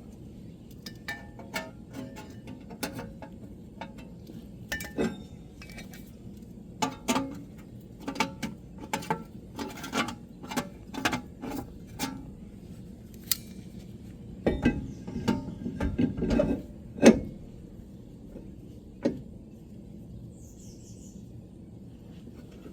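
Metal hand tools clinking and clanking against car parts in irregular clicks and knocks, with a run of heavier knocks about two-thirds of the way through.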